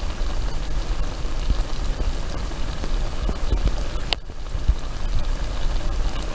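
Pan of fish and vegetables in coconut milk simmering on the stove: a steady low rumble and hiss with small pops, which breaks off abruptly about four seconds in and picks up again straight away.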